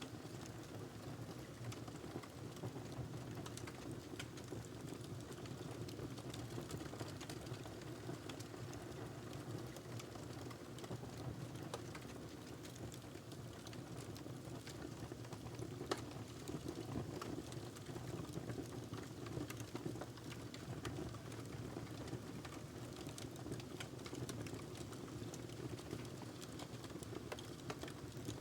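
Wood fire burning in a fireplace: a steady low rumble of flames under frequent small crackles and pops from the burning logs, with one sharper pop about halfway through.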